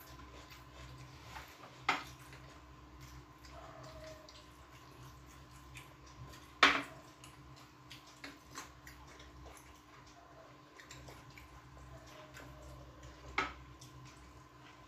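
Quiet eating sounds of people eating rice with their hands from glass plates, with small ticks and three sharp clicks, the loudest one in the middle, over a faint steady hum.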